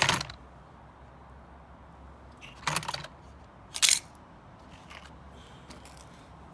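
A few short, sharp clacks and knocks as scrap parts from a stripped microwave are handled and set down, over a steady low hum.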